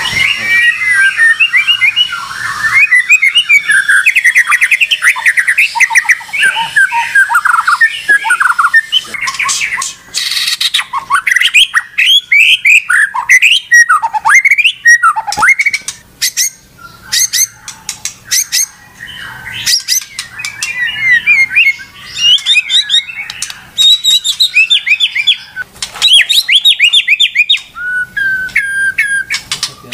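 White-rumped shama (murai batu) singing loud, fast and without pause: rapid varied phrases of whistles, chatter and harsh rattling notes. The bird has been provoked into full song and won't stop.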